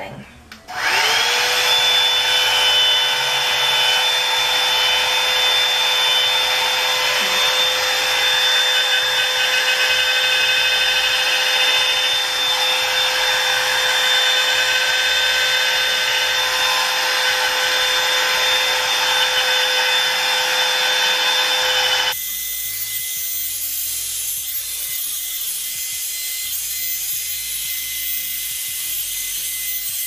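Revlon One-Step hair dryer brush switched on at its cool setting: the motor whirs up within about a second to a steady high whine over rushing air. About two-thirds of the way through the sound drops suddenly in level and changes tone, and the dryer keeps running.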